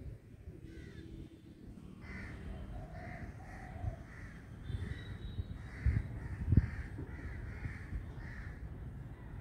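Crows cawing over and over, the calls starting about two seconds in, over a steady low outdoor rumble. A couple of sharp low thumps a little past halfway are the loudest sounds.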